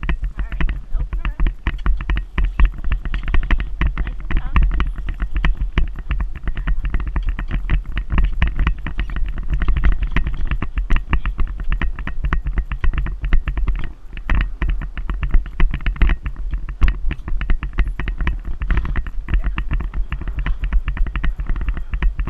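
Wind rushing over a riding camera's microphone, with a rapid, steady clatter of an Icelandic horse's hoofbeats and tack as it moves fast along the trail.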